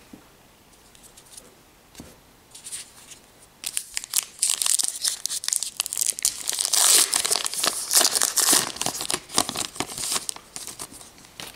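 A trading card pack wrapper being torn open and crinkled by hand. It starts loudly a few seconds in, runs for several seconds and dies away near the end, after a few soft rustles of handled cards.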